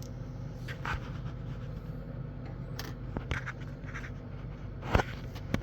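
Scattered small clicks and scrapes as the caravan skylight's gas strut fittings are worked loose by hand, with one sharp click about five seconds in, over a steady low hum.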